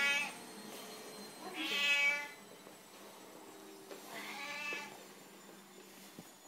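Domestic cat meowing at a pot of cat grass held above it, begging for it: a meow ends just after the start, then come two more, about a second and a half and about four seconds in.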